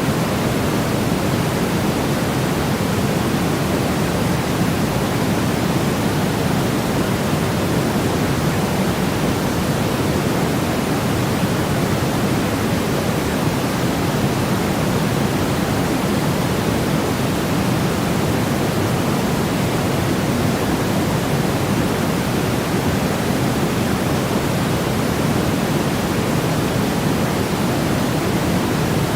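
Steady white-noise track: an even, unchanging hiss, fuller in the low end than the high.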